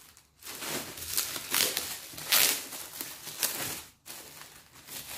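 Plastic parcel wrapping rustling and crinkling as it is handled, with several loud crackles, quieter for the last second or so.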